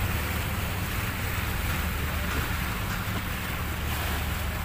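Speedboat engine running steadily under way, a constant low drone, with wind on the microphone and water rushing past the hull.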